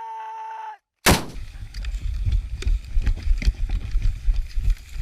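A brief held tone, then, about a second in, a single sharp, loud blast of an 81 mm mortar firing, followed by an uneven low rumble.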